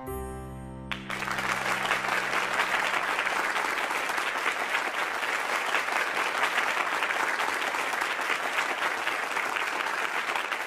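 A crowd applauding steadily for about nine seconds. It starts suddenly about a second in, as the last chord of the music rings out.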